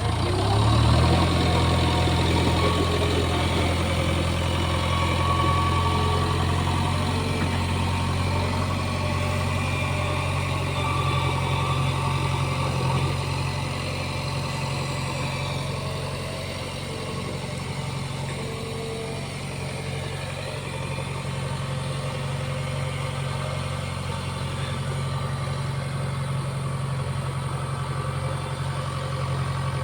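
Diesel engine of a JCB 3DX backhoe loader running steadily, a low drone that holds a near-constant pitch.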